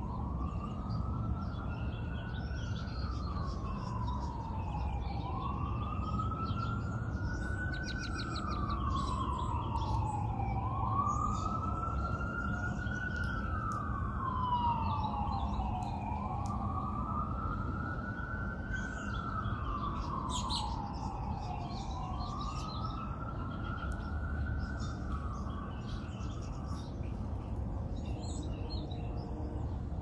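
Emergency vehicle siren in a slow wail, rising and falling about every five and a half seconds and stopping shortly before the end. Small birds chirp high and scattered over it, above a steady low background rumble.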